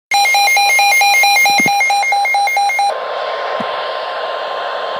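Emergency Alert System warning beeps: rapid, even electronic beeping, about four to five beeps a second, for roughly three seconds. It stops sharply and gives way to a steady hiss with a faint held tone.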